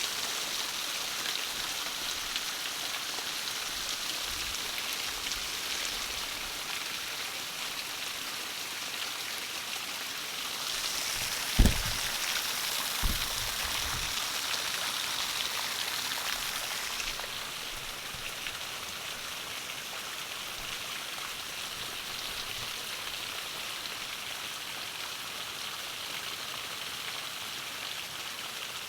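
Heavy rain pouring down in a steady hiss that grows heavier for several seconds a little before halfway, then eases back. Two dull thumps stand out during the heavier spell.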